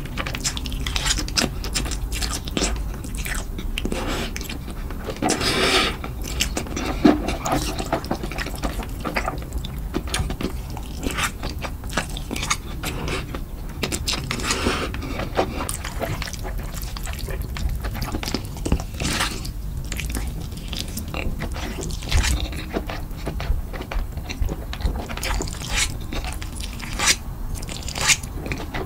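Close-miked eating of sauce-coated noodles with chopsticks: wet chewing and smacking, broken by a few longer slurps as mouthfuls of noodles are drawn in.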